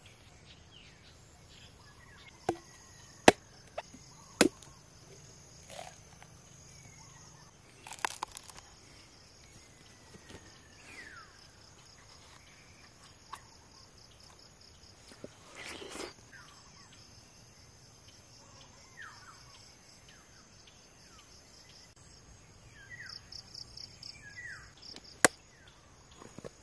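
Crickets and other insects chirring steadily in high, pulsing trills, with short bird chirps now and then. Several sharp knocks cut through, three in the first few seconds and a loud one near the end, with brief rustles around eight and sixteen seconds in.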